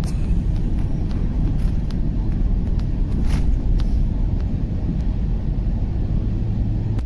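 Inside a car's cabin while driving on a wet road in rain: a steady low rumble of engine and tyres, with a few faint ticks.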